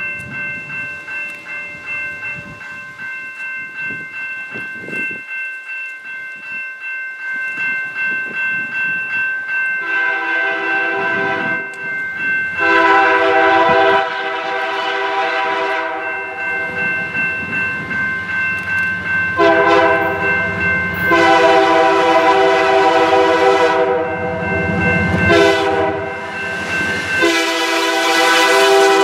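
Freight train led by three EMD GP20C-ECO diesel locomotives approaching, a bell ringing steadily in quick strokes. From about ten seconds in, the lead locomotive's multi-chime air horn sounds a series of blasts: two long ones, a longer one broken briefly about twenty seconds in, a short one, and another long one starting near the end. A low engine rumble grows under the horn as the locomotives draw near.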